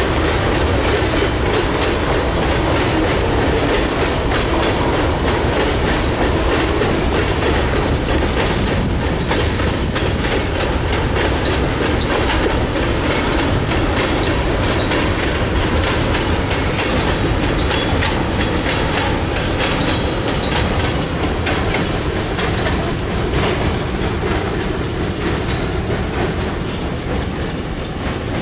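Loaded freight cars of a sand train rolling past: a steady rumble of steel wheels on rail, easing off slightly near the end as the cars move away.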